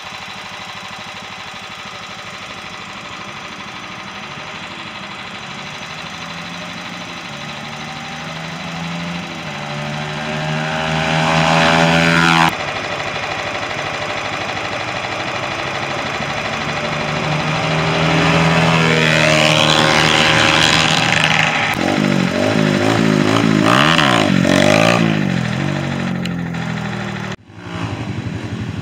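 Honda CRF150F dirt bike's single-cylinder four-stroke engine running and accelerating, its pitch and loudness climbing in long pulls, with a riding lawn mower's engine running as well. About two-thirds of the way in, the engine revs up and down in quick swings.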